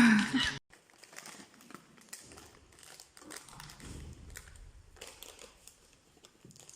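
A loud sound cuts off suddenly about half a second in, then faint rustling and crinkling with scattered small clicks, like bags or packaging being handled.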